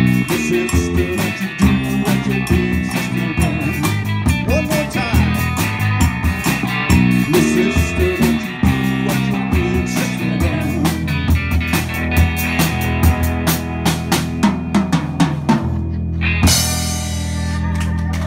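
Live rock band playing an instrumental passage without vocals: drum kit, electric bass and electric guitars, with steady drum hits. Near the end a cymbal crash rings out over a held closing chord, the end of the song.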